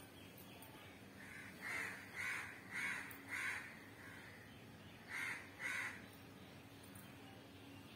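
A crow cawing: four short caws about half a second apart, then two more a couple of seconds later.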